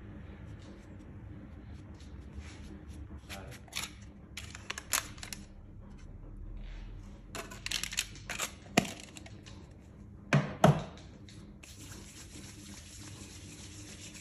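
Crinkling and clicking of a plastic jar of hair styling product being handled, its lid twisted off and its seal peeled back, with a loud double knock about ten seconds in. A low steady hum underlies it, and a thin steady hiss comes in near the end.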